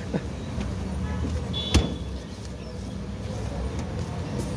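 Steady low rumble of road traffic, with one sharp click a little under two seconds in.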